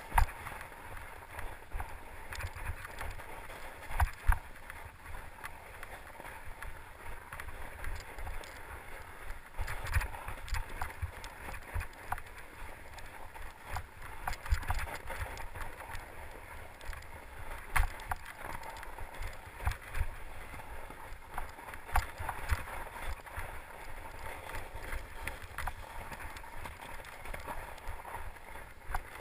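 Fat-tyre mountain bike ridden over snow: a steady low rumble and crunch of the wide knobby tyres, with frequent sharp knocks and rattles from the bike over bumps.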